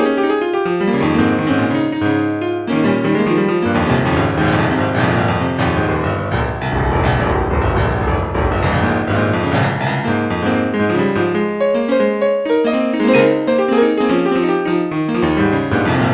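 Background music led by piano, a steady flow of notes over a low bass line.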